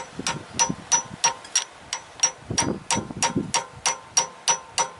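Hammer tapping on a socket and extension, about three light, even strikes a second, each with a short metallic ring. The strikes are driving a pilot shaft bushing into the back of an engine block.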